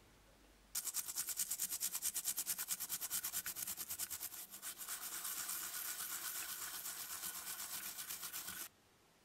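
A toothbrush scrubbing a small finned metal radiator part wet with vinegar, in quick, even back-and-forth strokes. It starts about a second in and stops suddenly near the end.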